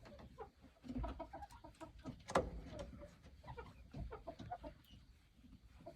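Domestic hens on the roost for the night making scattered soft clucks and short murmuring notes, with a few short knocks among them, the sharpest about two and a half seconds in.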